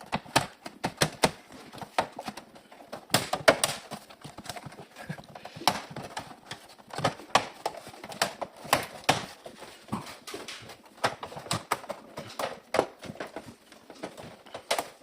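Irregular clicks and knocks of a hand tool against plastic and metal as a panel is pried loose and unscrewed from the back of an OLED TV.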